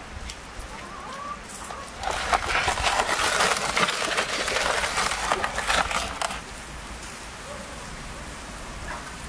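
Wood fire and embers crackling in a clay oven, loud and dense for about four seconds starting two seconds in, as a metal tray is pushed in over the coals; fainter crackling and hiss before and after.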